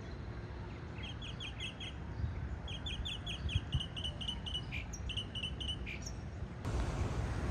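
Northern cardinal singing: short series of four or five quick, downslurred whistled notes, repeated several times, over a low background rumble that grows louder near the end.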